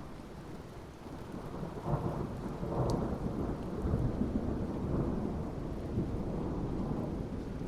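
Rolling thunder over steady rain: a deep rumble builds about two seconds in and keeps rolling through the rest, with a faint crack near the three-second mark.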